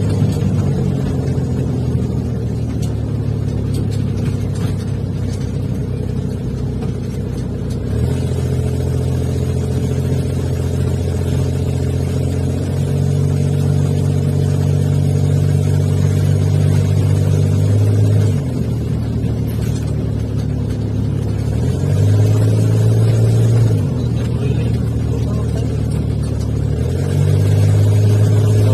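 Car engine and road noise heard from inside the cabin while driving, a steady low drone that steps up and down in pitch several times as the car speeds up and eases off.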